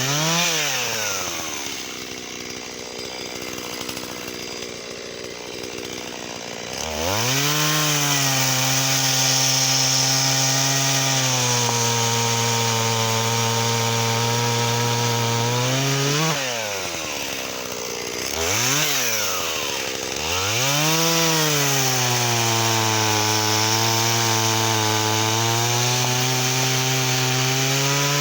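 Shindaiwa 488 two-stroke chainsaw cutting wattle. It runs softer for the first several seconds, then is throttled up and held at a high, steady note in the cut. Around two-thirds of the way through it is eased off and revved twice before settling back into the cut.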